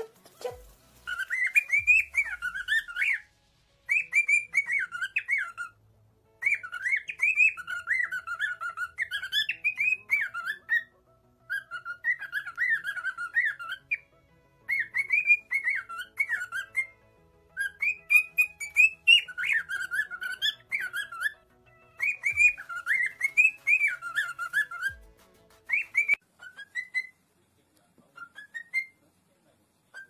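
Cockatiel whistling a warbling song, phrase after phrase with short pauses between, then a few short separate chirps near the end.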